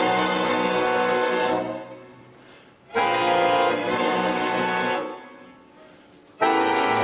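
Accordion and string orchestra playing loud, full sustained chords. Each is held about two seconds and then released, leaving a short dying tail, and a new chord comes roughly every three seconds, three in all.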